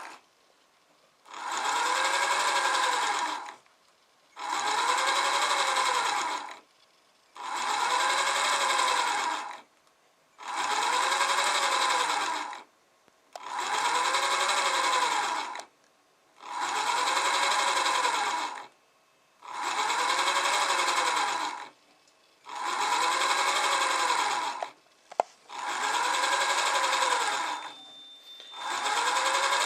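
Small brushed DC motor under servo position control whining through a series of repeated indexing moves, about ten of them, one every three seconds or so with short pauses between. Within each move the pitch rises and falls as the motor speeds up and slows down along its shaped motion profile. A single sharp click comes about 25 seconds in.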